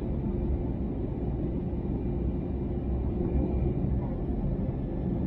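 Steady cabin noise of an Airbus A320-271N in flight, heard from a window seat beside the engine: a constant low rumble and hiss from its Pratt & Whitney PW1100G geared turbofans and the airflow over the fuselage.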